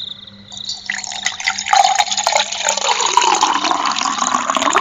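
Coffee poured into a cup, a steady liquid pour starting about half a second in, its pitch shifting as the cup fills. Crickets chirp faintly underneath.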